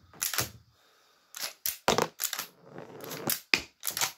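Umarex Legends Cowboy lever-action CO2 rifle being cycled: from about a second in, a quick run of sharp metallic clacks as the underlever is worked and the shell-ejecting cartridges are thrown out.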